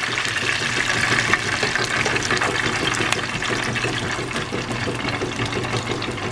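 Chicken wings deep-frying in hot oil, a steady sizzle and bubbling with many small crackles.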